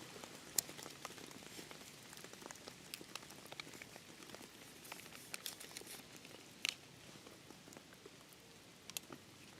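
Small campfire crackling faintly: irregular sharp pops and ticks over a low hiss, the fire barely going on damp wood.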